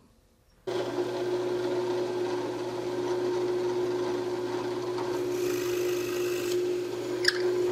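Benchtop drill press switched on under a second in and running with a steady motor hum. About five seconds in, the 5/16-inch bit cuts into the wooden block for a little over a second, adding a rasping hiss, and there is a brief click near the end.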